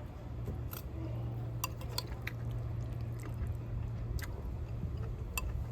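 A person chewing food, with scattered light clicks of cutlery, over a steady low hum.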